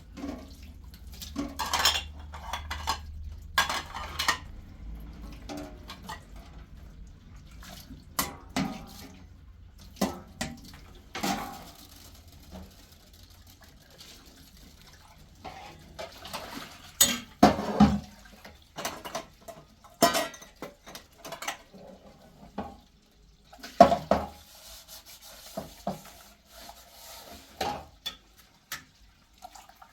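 Dishes and utensils being handled, with scattered clinks and clatters. The loudest knocks come just past the middle and again about four-fifths of the way through.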